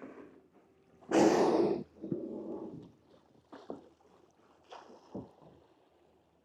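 Killer whale surfacing and blowing: one loud, breathy whoosh of exhalation about a second in, lasting under a second, followed by softer scattered splashy sounds.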